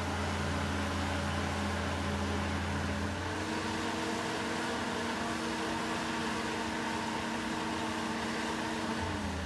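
Boatyard travel lift's engine and hydraulics running with a steady hum. The note shifts to a different pitch about three seconds in and shifts back near the end.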